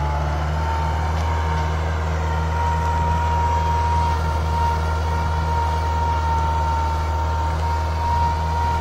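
Tractor diesel engine running steadily at a constant speed under load: a low, even hum with a steady high whine over it.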